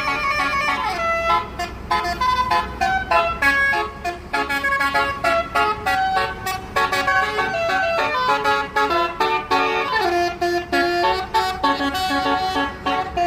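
Basuri telolet horn on a bus playing a fast melody, a quick run of short notes that step up and down in pitch.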